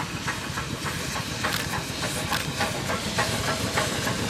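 YD-class 2-8-2 steam locomotive working a train, its exhaust chuffing about three beats a second over a steady hiss of steam, growing slightly louder near the end as it approaches.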